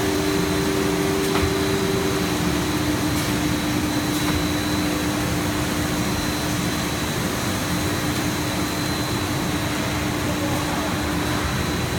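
Steady whir and hum of a running PET sheet extrusion line, its motors and fans going together. There is a steady low tone and a faint high whine throughout, and a second low tone drops out about two seconds in.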